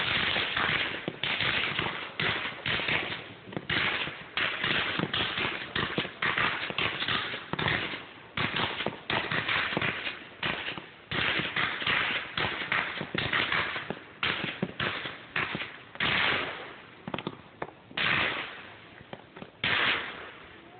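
Fireworks going off in rapid succession, heard through a phone's microphone: a dense run of sharp shots and bursts that thins out after about 15 seconds into a few separate, longer bursts.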